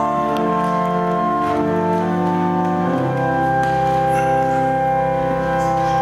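Pipe organ playing slow, held chords that change about one and a half seconds in and again about three seconds in, when a deep bass note joins.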